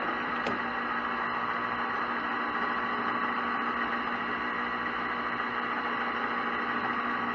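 Metal lathe running steadily, a constant hum with a faint whine, with a couple of faint ticks near the start.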